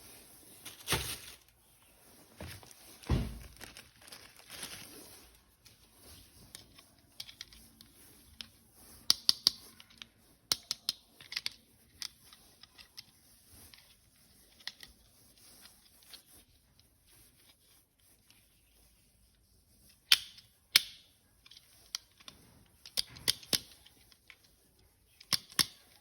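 Plastic packaging rustling and tearing, with a couple of dull knocks near the start and scattered sharp clicks of hard plastic parts being handled.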